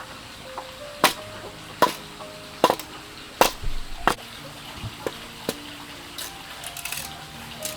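Chopping strokes with a blade, five sharp chops about one every three-quarters of a second, then fainter, sparser knocks and taps. Soft background music runs under them.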